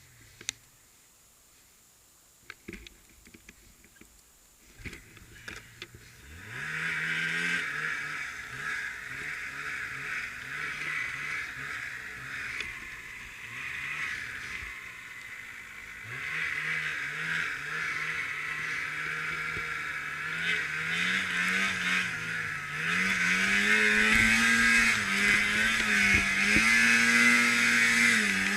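A few faint knocks, then about six seconds in a snowmobile's two-stroke engine revs up and runs, its pitch rising and falling as the throttle is worked, growing louder near the end.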